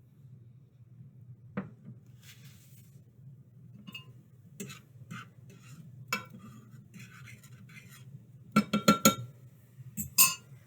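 Kitchen utensils and cookware clinking and knocking: scattered single clinks, then a quick run of four about nine seconds in and two more near the end, over a steady low hum.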